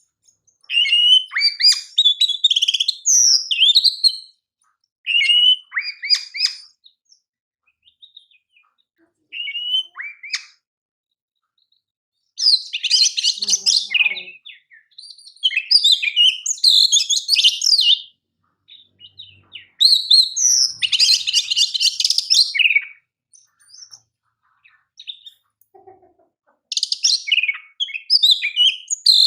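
Oriental magpie-robin (kacer) singing: loud, varied whistled and chattering phrases in bursts of one to three seconds separated by short pauses, some of them fast buzzy trills.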